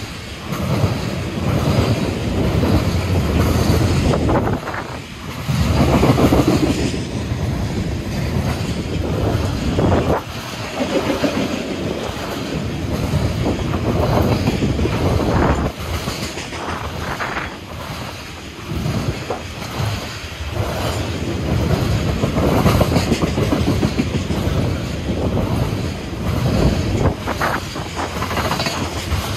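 Freight train tank cars rolling past close by: a continuous heavy rumble of steel wheels on rail, broken by repeated knocks as the wheels cross rail joints.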